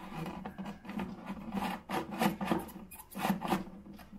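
Red plastic flush lever arm being slid onto the handle's metal spindle and worked into place inside a ceramic toilet cistern: a run of irregular scraping and rubbing strokes, loudest about two seconds in and again just after three seconds.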